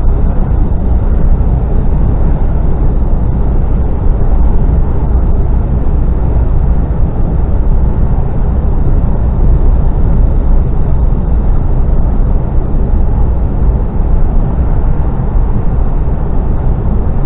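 Steady, loud low drone of a Mercedes Actros lorry underway, heard inside the cab: engine, tyre and wind noise at an even speed.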